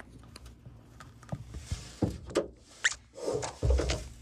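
Handling noise from a phone being moved around by hand: scattered light knocks and rustles, a brief high squeak near the middle, and a heavier low bump with rustling about three and a half seconds in.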